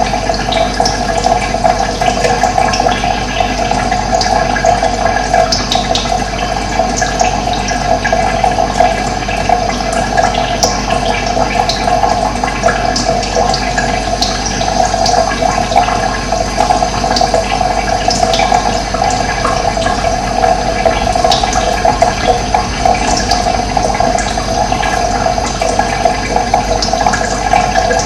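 Steady rushing of running water, with short high bird chirps scattered throughout.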